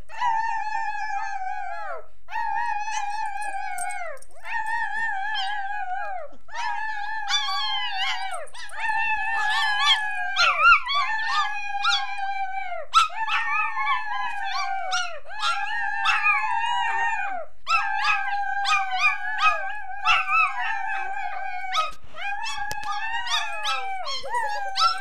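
A small dog and children howling together: a long run of drawn-out howls, each about two seconds long and dropping in pitch at the end, with several howls overlapping from about seven seconds in.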